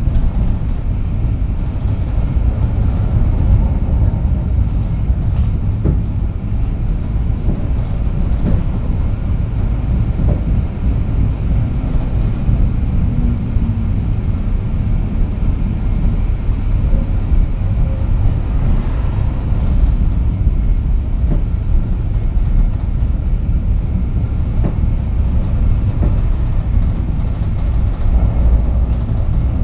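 Moderus Beta MF15 AC tram running along the track: a steady low rumble of the moving tram, with a few faint knocks.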